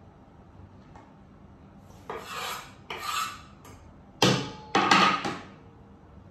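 Kitchenware being handled on a counter: a wooden cutting board and dishes knocked and set down in a run of clatters, the loudest about four seconds in, one leaving a brief ringing tone.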